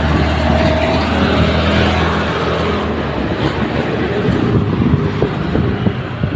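Riding noise on a moving motorcycle: wind rushing over the microphone, with the engine's steady low hum for the first three seconds or so, then rougher road and traffic rumble.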